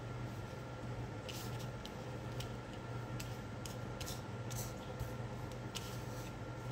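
Tarot cards being handled and laid out: a string of light clicks and slides starting about a second in, over a faint steady hum.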